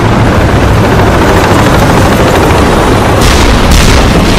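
Tank battle sound: a dense, steady rumble of heavy engines and tracks mixed with gunfire, and two sharp blasts a little after three seconds in.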